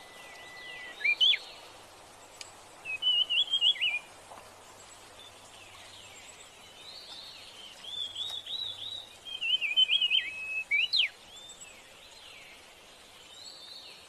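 Male grey-chinned minivet giving bursts of high, quick twittering chirps: a short pair about a second in, a run around three to four seconds, and longer runs from about eight to eleven seconds, over a steady outdoor hiss.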